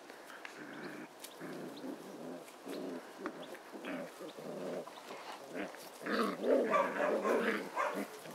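Five-week-old puppies growling and yapping in short bursts as they wrestle in play, louder from about six seconds in.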